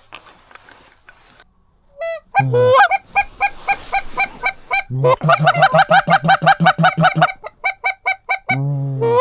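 Goose honking and clucking in quick, evenly spaced series of about six notes a second. The runs start about two seconds in and go on, with short breaks, to the end.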